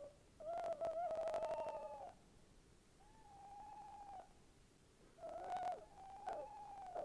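Tawny owl hooting: four long hoots, the first about a second and a half long and the second wavering, with a rapid patter of clicks under the first hoot.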